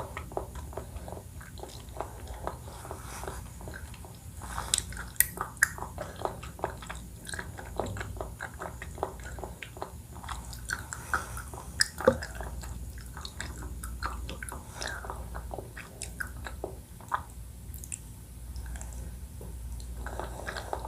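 Close-miked chewing and biting of a Thai coconut-milk dessert: a steady run of irregular wet mouth clicks and small crunches.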